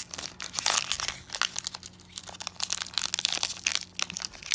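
Pokémon card booster-pack foil wrapper crinkling and cards being handled: a run of irregular rustles, quieter around the middle.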